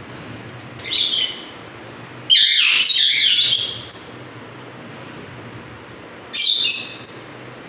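Alexandrine parakeet screeching: three loud, harsh calls, the middle one longest at about a second and a half.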